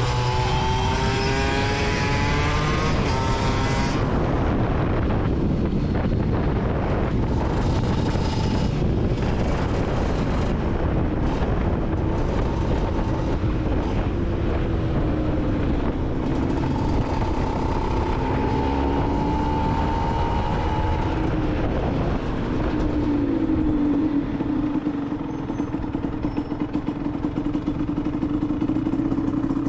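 Aprilia SX 125's single-cylinder two-stroke engine through an Arrow exhaust, under way. It revs up, rising in pitch over the first few seconds, then its note rises and falls as it rides on, and about three-quarters of the way through it settles into a steady note.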